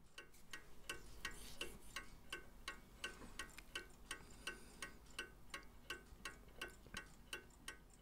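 Hermle skeleton mantel clock's mechanical movement ticking, faint and even at about three ticks a second.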